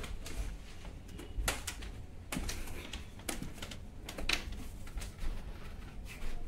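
A few light clicks and knocks, about one a second, over a low steady rumble.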